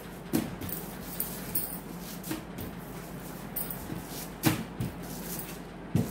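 Aluminium foil crinkling and scattered light knocks as dough is pressed by hand and rolled out with a wooden rolling pin on the foil, the loudest knocks about four and a half and six seconds in.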